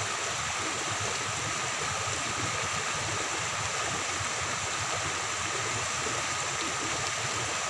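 Steady rush of flowing floodwater, with rain falling on the water's surface: a constant, even hiss with no separate splashes.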